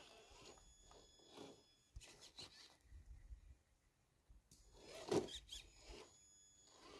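Faint, scattered scuffing and rubbing of an RC scale crawler's tyres and chassis on dirt and rock, with one louder scrape about five seconds in.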